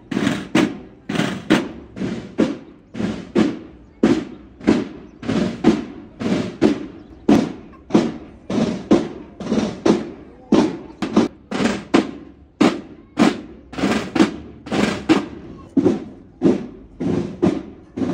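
Marching snare and bass drums beating a steady military cadence, about two strokes a second.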